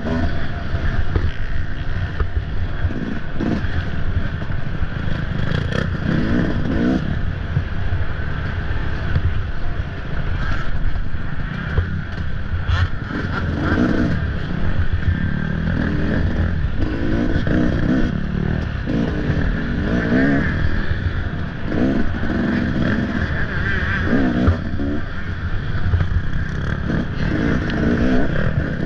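Off-road dirt bike engine revving up and down over and over as it is ridden, with scattered knocks and clatter.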